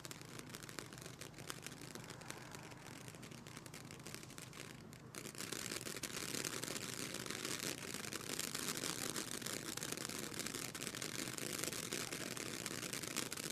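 Weco Hexentanz firework ground fountain burning: a steady hiss of spraying sparks with dense crackling. About five seconds in it grows louder and fuller.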